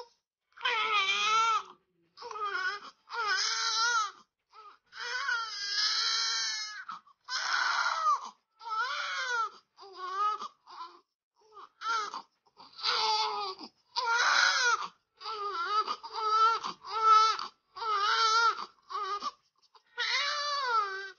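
Newborn baby crying very loudly: a long string of wavering wails, about one a second, each broken off by a short catch of breath.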